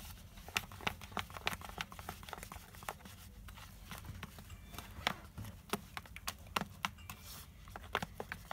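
A glue-based slime mixture being stirred in a container, giving a fast, irregular run of short clicks and taps, several a second.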